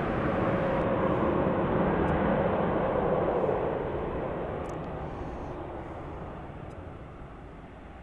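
Jet noise from an Airbus A380's four turbofan engines as the airliner rolls along the runway, a dense, steady roar. It is loudest for the first three seconds or so, then fades steadily through the rest.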